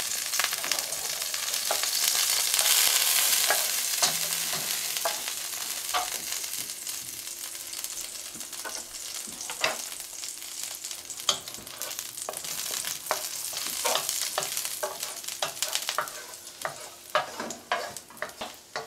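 Chopped garlic sizzling in hot oil in a frying pan, a steady hiss that is loudest a few seconds in and slowly eases off after the heat is turned down. Scattered clicks of a utensil in the pan.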